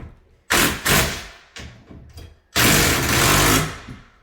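Power drill driving screws into the barn door rail and header in bursts: two short runs early on, then a longer run of about a second near the end.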